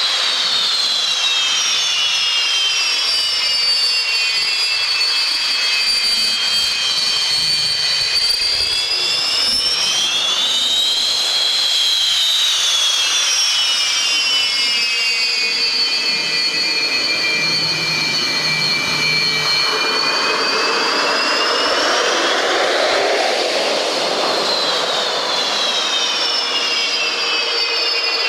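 Jet aircraft engine running with a high, steady whine, its pitch rising and falling twice: once about ten to thirteen seconds in, again about twenty-two to twenty-five seconds in.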